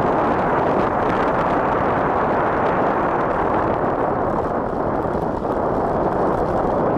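Steady rush of wind buffeting the camera's microphone on a fast bicycle descent.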